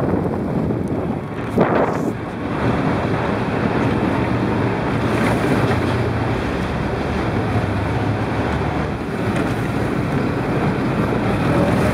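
Off-road buggy's engine running at speed, with heavy wind buffeting the microphone.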